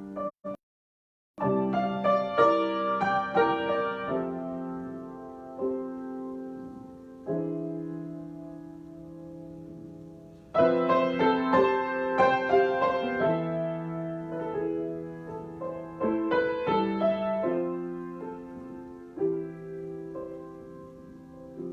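Solo piano improvisation: flurries of quick notes and chords that are held and fade away between them. The sound cuts out completely for about a second near the start.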